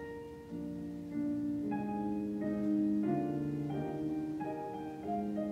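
Classical piano music playing, a melody of held notes changing about every half second.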